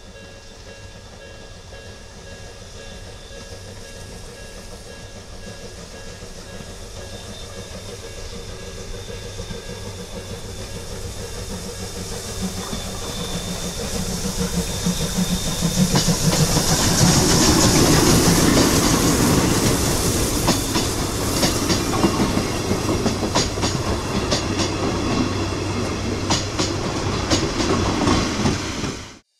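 Chichibu Railway C58 363 steam locomotive and its coaches passing by. The sound builds steadily as the train approaches and is loudest a little past halfway. After that, the coaches' wheels click rhythmically over the rail joints as they roll past, until the sound cuts off at the very end.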